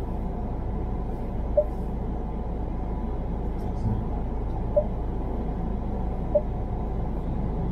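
Car interior road noise: a steady low rumble of engine and tyres, with a short beep roughly every two seconds.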